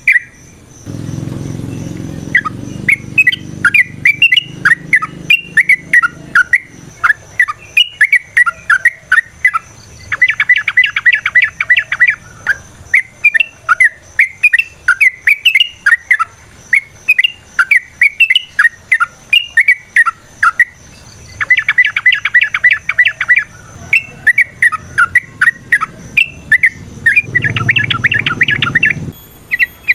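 Yellow-vented bulbul singing a long run of bubbly, warbling notes. The song breaks three times into fast rattling trills of a couple of seconds each.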